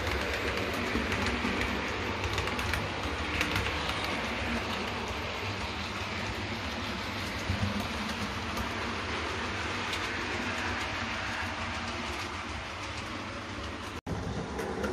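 Model railway train running on the layout: a steady rumble of wheels on the track with many light clicks. The sound drops out for an instant near the end.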